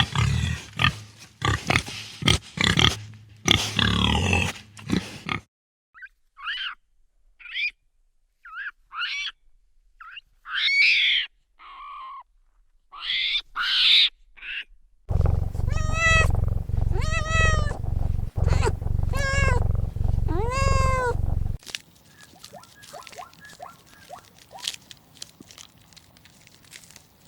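A run of different animal calls: harsh overlapping calls, then short high calls with gaps between them, then about five drawn-out pitched calls that each rise and fall over a low hum, then faint rustling near the end.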